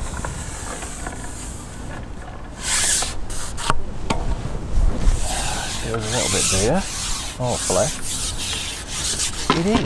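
Close rubbing and scraping handling noise, irregular and scratchy, louder from about two and a half seconds in. A few short gliding squeaks come in the second half.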